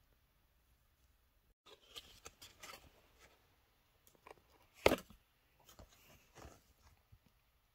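Cosmetic sample packaging handled inside a canvas pouch: scattered rustles and crinkles of card and plastic, with one sharp knock about five seconds in.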